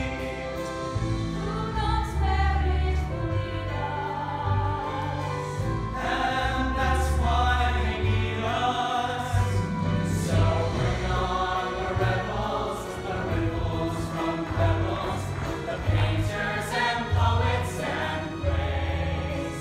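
Mixed youth show choir singing in harmony over an instrumental accompaniment with a bass line and a steady beat.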